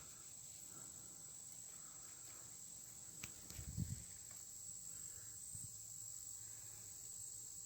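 Faint steady high-pitched drone of insects in summer woods, with a brief click and a short low thump a little over three seconds in.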